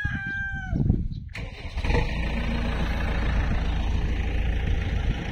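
A rooster finishes crowing, then about two seconds in a diesel engine starts and runs steadily with a deep, even note.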